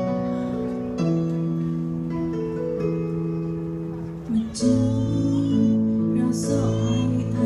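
Instrumental backing music with held, slowly changing chords; about four and a half seconds in, a woman starts singing over it.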